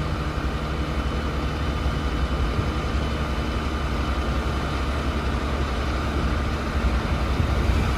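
Heavy diesel truck engine running steadily while an end dump trailer is raised to unload its load of shred.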